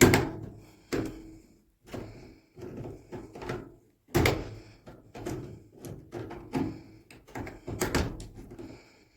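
Knocks, clicks and clatter of plastic and metal washing machine parts being handled while the water inlet valve's wiring connector and hose are pulled off. The sharpest knocks come at the start, about four seconds in and about eight seconds in.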